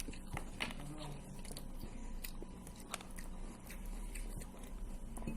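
Close-up chewing and biting of crunchy food: irregular crisp crunches and wet mouth clicks, over a steady low hum.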